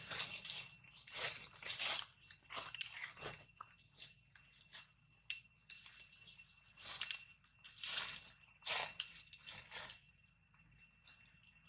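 Dry leaves crunching and rustling in irregular bursts, with a faint steady high-pitched whine underneath.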